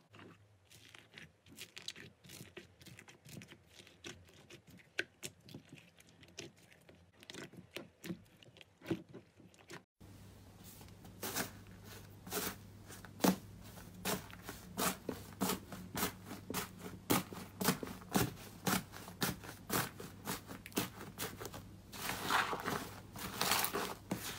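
Hands pressing and kneading slime, making a quick run of crackling clicks and pops. First comes purple slime mixed with foam beads, crunching under the hand. After a cut, a blue foamy slime is pulled and torn apart with louder, busier crackling that thickens near the end.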